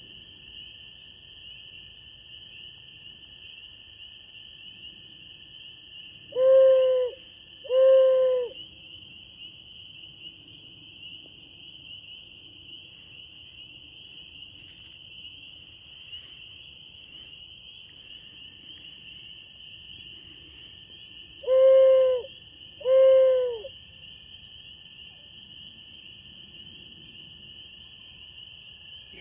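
Hoot flute, an owl-hoot locator call used to make roosting turkeys gobble, blown in two pairs of short hoots, the pairs about fifteen seconds apart. Under it runs a steady, loud high-pitched chorus of spring peepers.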